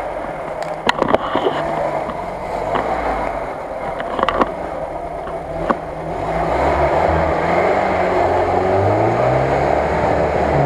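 UAZ-469 engine running under load as the 4x4 crawls through deep mud, louder in the second half with the revs climbing near the end. A few sharp knocks in the first half.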